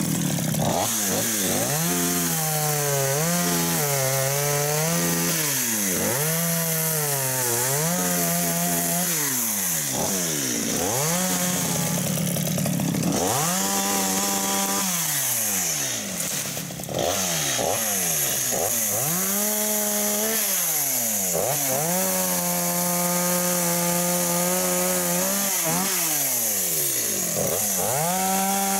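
Two-stroke chainsaw cutting apple wood. The engine pitch sags each time the chain bites into the wood and climbs back to full revs between cuts, over and over.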